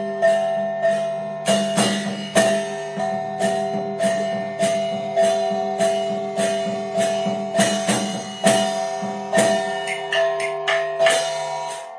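Daqiang opera percussion band: gongs and cymbals struck in a steady beat of nearly two strikes a second, their tones ringing on between strikes. The ringing stops shortly before the end.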